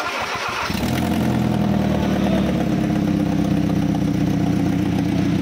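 Hyundai Creta petrol engine cranked by the starter and catching within about a second, then running steadily at idle. It runs with its upstream oxygen sensor removed, in a test for a catalytic converter the mechanic suspects is internally choked.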